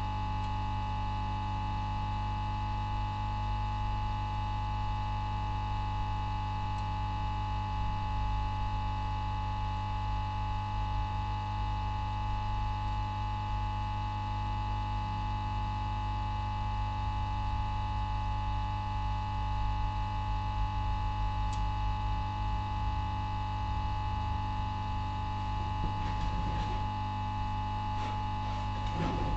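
Steady electrical hum and whine from bench equipment: a low mains-type hum with a high tone above it, unchanging throughout. A few light taps near the end.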